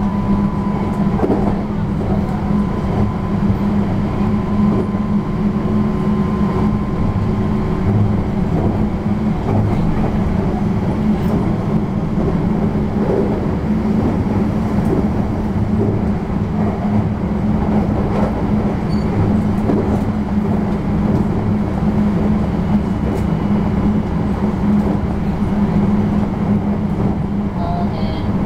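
Interior running sound of a JR West 321 series electric multiple unit travelling at speed: a steady low rumble of wheels on rail heard inside the carriage. A faint steady tone fades out about eight seconds in.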